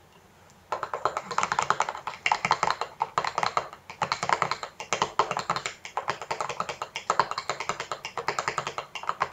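Metal spoon stirring quickly in a stainless steel mixing bowl, a rapid run of clinks and scrapes against the metal that starts just under a second in, mixing a homemade liquid shampoo.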